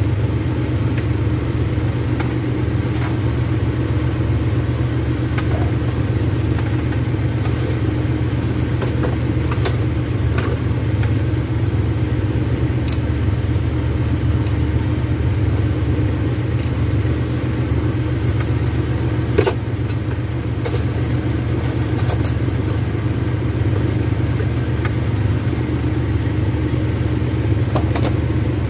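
An engine running at a steady idle with an even low hum, and a few faint light clicks over it.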